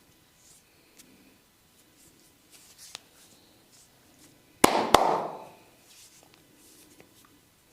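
Two sharp cracks about a third of a second apart, then a brief rushing rustle, from the barber's hands working the head and neck. Fainter ticks and taps come before them.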